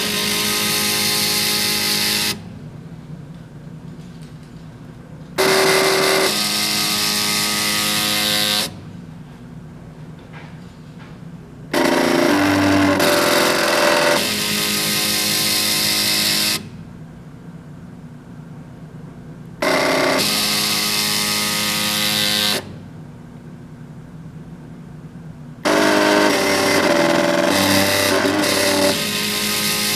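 Stepper motors of a homemade CNC pen plotter whining in steady tones that step in pitch as they drive the pen along each line of the drawing. The tones come in runs of a few seconds that start and stop abruptly, with quieter pauses between.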